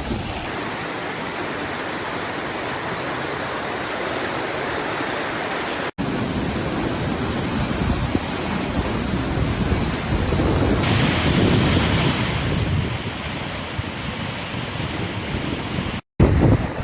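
River Don in full flood, a steady rush of fast-flowing water, with wind gusting on the microphone at times. The sound breaks off for an instant twice where clips are cut together.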